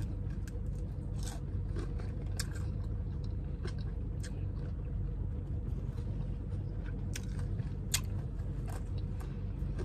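A person chewing a mouthful of chicken wing, with scattered small sharp clicks from the eating. Under it runs the steady low hum of a car cabin.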